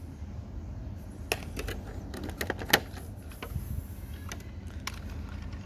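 Irregular hard plastic clicks and taps from handling a toy car and its clear plastic packaging tray, the sharpest about two and a half seconds in, over a low steady hum.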